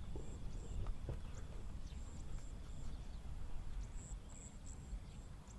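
Outdoor field ambience: wind rumbling on the microphone, with faint short high-pitched chirps repeating here and there.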